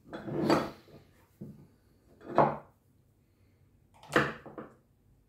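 Brass vane pump and stainless steel fittings being handled and set down on a wooden bench: a scraping rub at the start, then a few knocks, the sharpest about two and a half and four seconds in.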